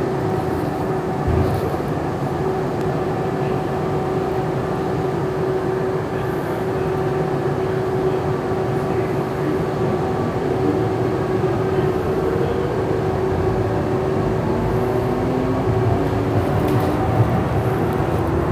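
Siemens S200 light rail vehicle heard from inside the car, running with a steady hum over the rumble of the wheels on the rails. Near the end, rising whines come in from the traction drive.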